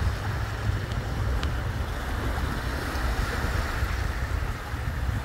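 Small waves breaking and washing up a shallow sandy shore, with wind rumbling on the microphone.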